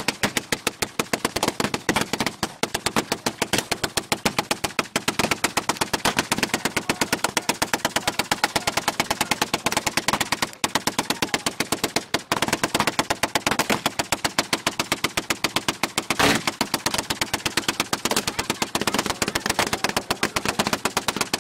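Hand-cranked Gatling gun firing a long, continuous burst of rapid, evenly spaced shots, several a second, with a couple of brief hitches near the middle.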